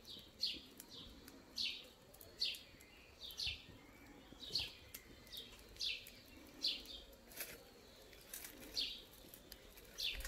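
A bird calling over and over, a short falling chirp about once a second.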